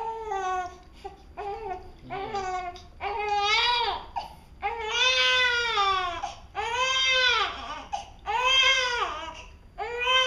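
A one-week-old newborn baby crying in repeated wails, about eight cries of roughly a second each, every one rising and then falling in pitch, with short breaks between.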